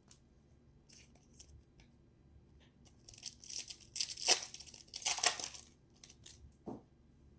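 A foil trading-card pack being torn open and crinkled. There are light crackles at first, then a run of loud ripping and crinkling from about three to five and a half seconds in, and a few small rustles after.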